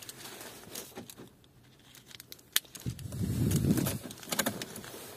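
Handling noise in a car cabin: a few sharp clicks, then a loud rustling rumble lasting about a second, starting about three seconds in, and a few more clicks.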